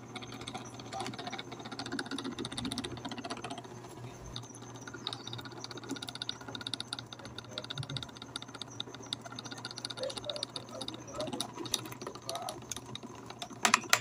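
Arno electric fan motor running with a steady hum, with fast, fine ticking from its open oscillation gear mechanism, and a sharp click near the end.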